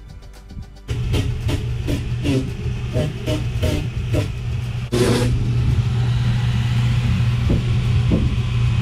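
Angle grinder with a sanding disc switched on about a second in, grinding fibreglass and resin on the boat's hull floor. At first it bites in short repeated scrapes, then from about halfway it grinds louder and steadily.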